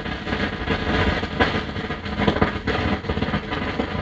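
Stylus of an Ortofon 2M Red cartridge riding on a spinning, grooveless disc, heard through the amplifier as a loud, steady rumbling hiss full of crackles and thumps. This is an anti-skating test, with the arm still drifting slightly.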